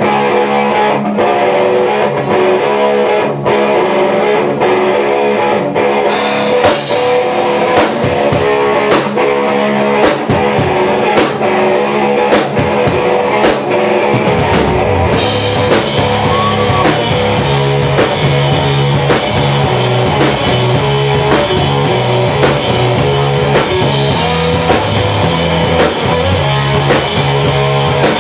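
Rock band playing live, without vocals: an electric guitar riff with drums. Cymbals come in about six seconds in, and about fourteen seconds in a deep low end joins and the full band plays on.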